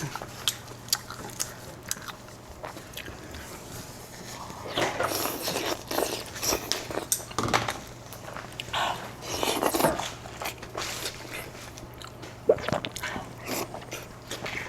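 A person eating close to the microphone: irregular biting, chewing and crunching mouth sounds, with louder stretches about five and ten seconds in.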